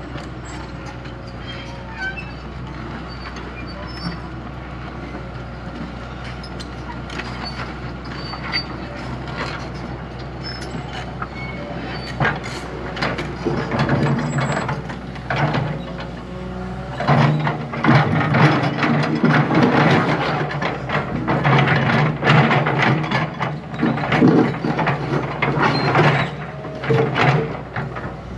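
Diesel engine of a heavy earthmoving machine running steadily, then from about 12 seconds in rattling and clanking metal joins it. About 17 seconds in the engine rises in pitch and loudness under working load, with loud, repeated metallic clanks and knocks until near the end.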